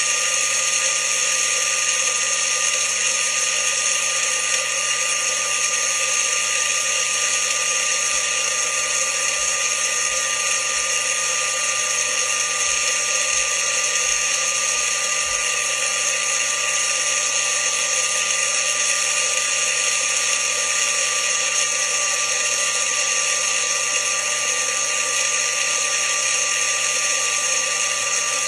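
Magic Bullet blender motor running steadily at a constant speed, blending soaked almonds and water into almond milk.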